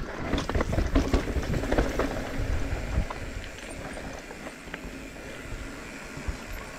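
Mountain bike riding down a rocky trail: tyres and frame knocking and rattling over rock for about the first three seconds, then settling into a quieter, steady tyre rumble on smooth hardpacked dirt.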